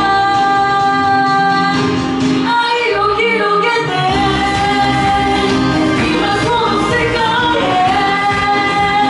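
A woman sings a pop/R&B song live through a handheld microphone and PA over a backing track, holding long, wavering notes. The deep bass of the backing drops out briefly about three seconds in.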